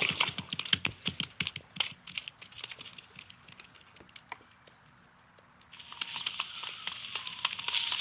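Cartoon sound effects: a rapid run of sharp crackles and clicks that thins out and goes quiet, then a steady hiss starting about six seconds in.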